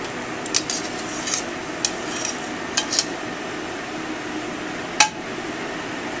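Metal kitchen utensils clinking against cookware: a handful of short, sharp clinks spread out, the loudest about five seconds in, over a steady background hum.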